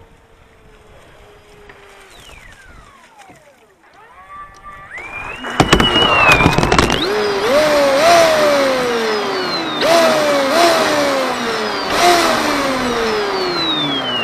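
Radio-controlled model boat motor spooling up about five seconds in, then revving in repeated bursts, each a quick rising whine that falls away slowly, over a loud rushing noise. Near the end one long falling whine as the motor winds down.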